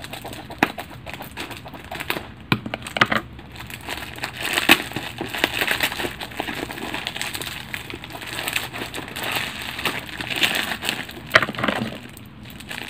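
Clear plastic wrap and brown packing tape crinkling and crackling as a taped parcel is pulled open by hand, with a few sharp snaps.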